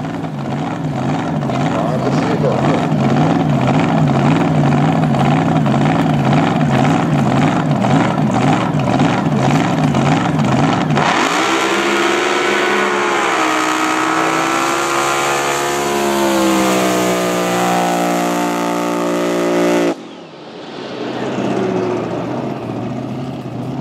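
Jet drag boat engine running at a lumpy, wavering idle. About eleven seconds in, the throttle opens and it revs hard, its pitch sweeping up and down and then climbing as the boat launches. Near the end the loud note cuts off abruptly, and a fainter, distant engine note follows.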